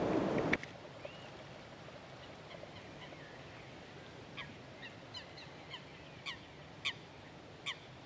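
Wind on the microphone for the first half second, cutting off abruptly. From about four seconds in, a waterfowl calls in a series of short honks, about one to two a second, getting louder.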